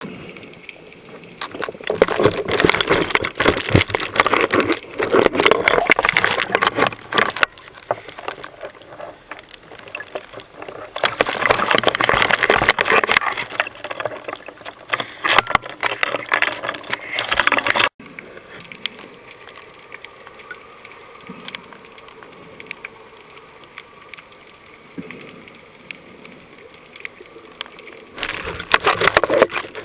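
Sea water splashing and sloshing against the microphone of a camera moving at and below the surface, in irregular bursts. A little past halfway it drops suddenly to a quieter, muffled stretch, and near the end there is another burst of splashing.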